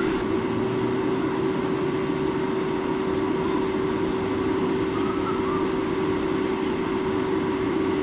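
Steady outdoor rushing of the river and wind on a wildlife webcam's microphone, with a constant low hum throughout. A couple of faint short chirps, one about five seconds in.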